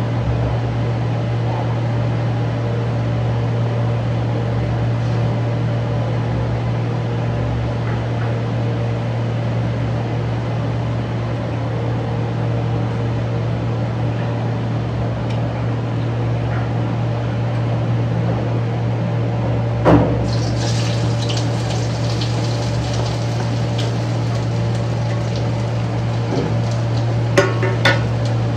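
A steady low mechanical hum runs throughout. About twenty seconds in comes a sharp click, then a few seconds of hiss. Near the end, a steel plate is moved on the counter, giving a few sharp metallic clinks.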